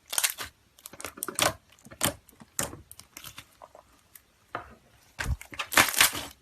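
Slime being squeezed and pressed by hand: irregular short crackles, pops and clicks, thinner in the middle and densest and loudest near the end.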